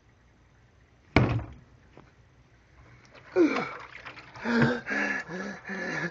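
One sharp hit about a second in, then from about three seconds a person coming up from having their head dunked in water, gasping and making wordless groaning sounds that rise and fall in pitch.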